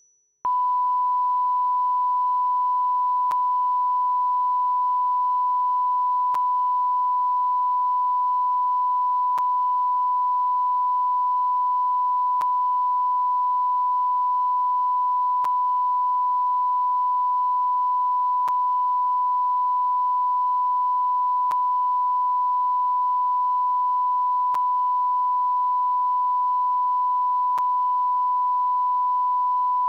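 Steady, unbroken test tone, the single pure reference beep that goes with broadcast colour bars, starting about half a second in. A faint tick recurs about every three seconds.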